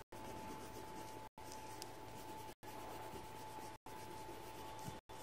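Colored pencil shading on paper, a faint soft scratching, with a thin steady hum beneath. The sound cuts out briefly about every second.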